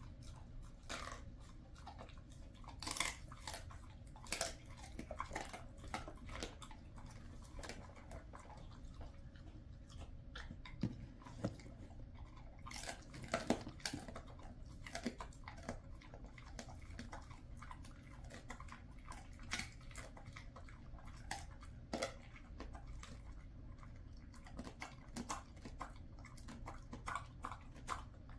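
A Jindo dog chewing a dried chicken foot treat, with irregular crisp crunches as he bites down.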